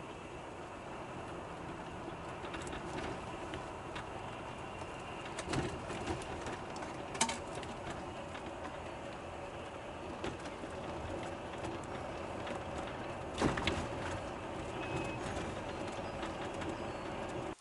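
Steady road and engine noise inside a moving sleeper bus's cabin, with a few short knocks or rattles, one about five seconds in and one near thirteen seconds.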